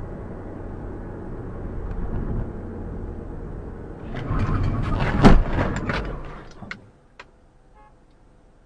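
Steady road noise inside a moving car. From about four seconds a louder rushing noise with clicks comes in, with one sharp knock a little past five seconds. It dies away to a faint hush by about seven seconds.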